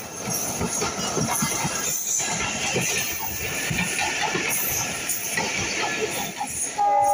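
Passenger train coaches passing close by at speed, their wheels rattling and clattering over the track with a steady rushing noise. Right at the end, a loud steady high tone cuts in.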